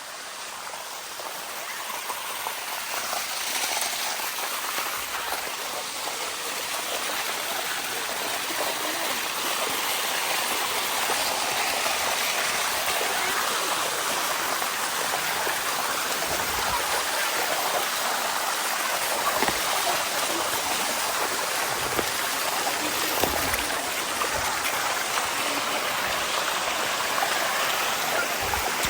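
Waterfall water rushing and splashing over rock in a steady wash, growing louder over the first few seconds, with a few dull low thumps in the second half.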